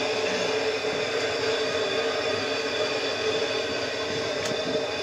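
Gas burner under a kettle corn kettle burning steadily, a constant rushing noise with a few steady hums, as the oil in the kettle heats up before popping.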